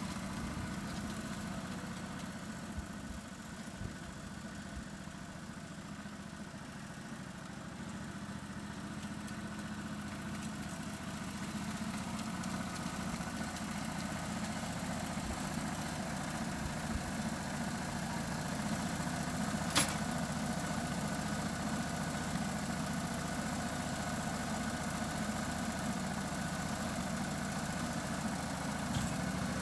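Ride-on 1-1/2-inch scale model diesel locomotive running with a steady engine hum, getting a little louder partway through. A single sharp click comes about two-thirds of the way in.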